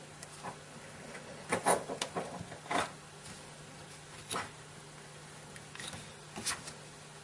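Small scattered clicks and scrapes of a pointed tool working against a Zippo lighter's metal insert as a cotton ball is forced down beside it, irregular and a few seconds apart.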